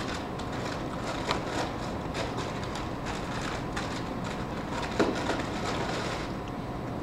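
Steady hum of a large cafeteria room with a run of small, irregular clicks and taps, and one sharper knock about five seconds in.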